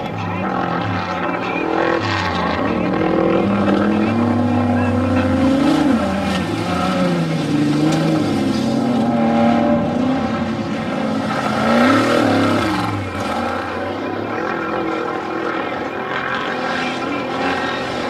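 Off-road race truck engines revving and easing off on a dirt course, their pitch climbing and dropping several times, loudest about twelve seconds in.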